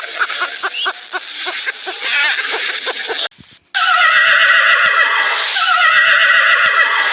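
A horse whinnying: a long, loud neigh with slowly falling pitch that starts about halfway through. Before it comes a run of short, rapid, evenly repeated animal sounds, then a brief silence.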